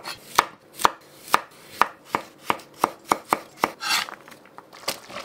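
Chef's knife chopping carrot on a wooden cutting board: a run of even knocks, about two to three a second. Near the end comes a short scrape as the blade pushes the diced carrot across the board, then one more knock.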